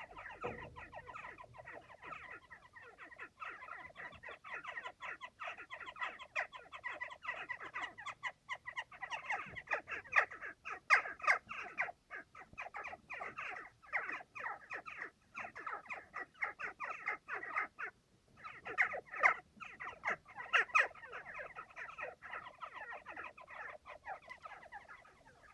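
Western jackdaws in a chimney nest calling in a rapid, almost continuous stream of short calls, with a brief break about 18 seconds in. Heard through an air vent.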